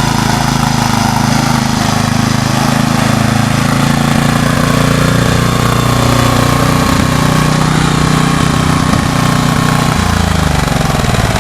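Engine of an old riding lawnmower running loud and steady close by, the machine recently repaired after years of not working. Near the end its pitch drops.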